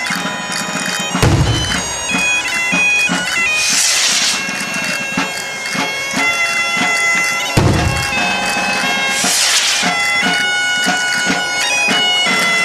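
Asturian bagpipe (gaita) playing a tune over its steady drone, with a drum beating along and a heavy low thump about a second in and again near eight seconds.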